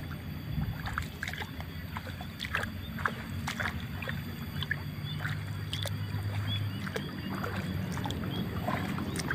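Steady low hum of a motor running, with scattered short clicks and taps over it.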